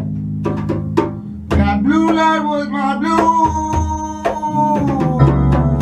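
Live rock band playing: a man sings into a microphone over electric guitar and a drum kit. His voice comes in about a second and a half in and holds one long note that falls away about five seconds in, with regular drum hits throughout.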